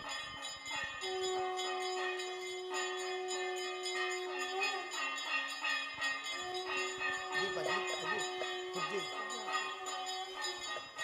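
Temple bells rung rapidly and continuously for an aarti, many ringing tones overlapping, with a long held lower note that breaks off about halfway through and resumes a couple of seconds later.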